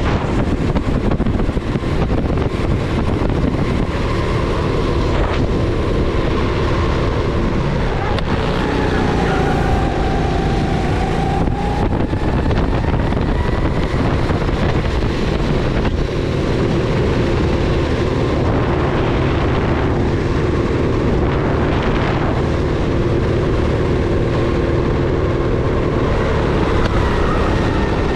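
Rental go-kart's motor running at racing speed, its pitch dipping and rising as the kart slows for corners and accelerates out of them, with wind buffeting the microphone.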